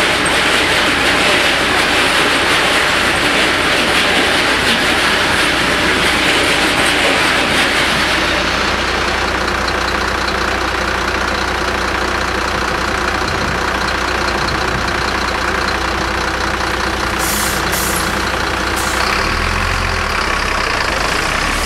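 The tail of a freight train of loaded hopper wagons rolling through the level crossing, a steady rumble and rattle of wheels on rail that fades out about eight seconds in. Then car engines idling at the crossing, with a few sharp clicks near the end and engines picking up as traffic moves off.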